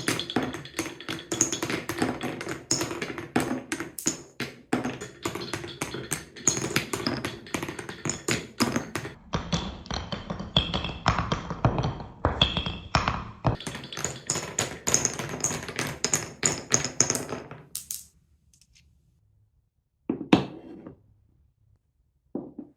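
Marbles rolling and clattering down a Cuboro wooden-block marble run, a dense stream of rapid taps and clicks on wood. It stops about eighteen seconds in, after which two single knocks sound a couple of seconds apart.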